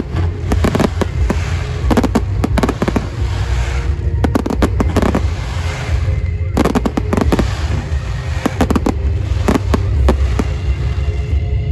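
Fireworks display: many sharp bangs from shells bursting in quick succession, with a brief lull about six seconds in.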